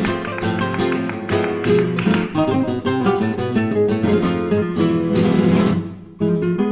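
Background music: a trio of acoustic guitars playing fast plucked, flamenco-style lines. About five seconds in there is a strummed flourish that breaks off for a moment before the playing resumes.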